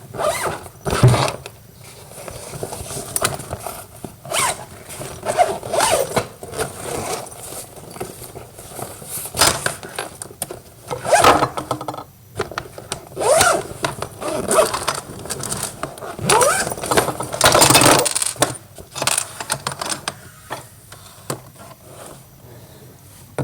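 Bags being handled while unpacked: zippers pulled, fabric and packaging rustled and scraped, in a string of short bursts.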